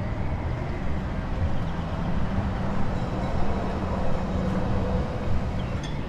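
Steady low rumble of road traffic, with a passing vehicle's engine hum through the middle.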